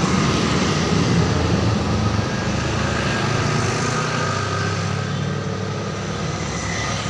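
Street traffic: motorcycle and truck engines running as they pass along the road, the noise easing slightly as the vehicles move off.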